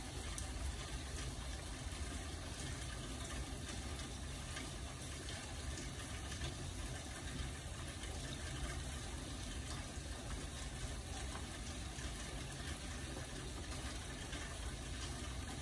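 Steady rain: an even, unbroken hiss that neither builds nor fades.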